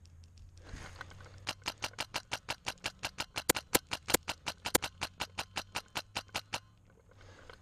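Airsoft gun firing a steady string of sharp shots, about six a second for some five seconds, some louder than others.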